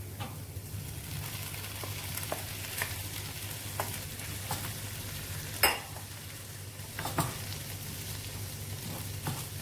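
Ground beef frying with golden fried onions in a non-stick frying pan, stirred with a wooden spoon: a steady sizzle with scattered scrapes and taps of the spoon against the pan, the sharpest a little past halfway.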